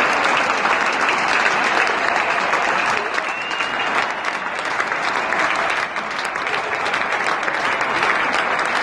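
Large cricket-ground crowd applauding a batsman walking off: dense, sustained clapping.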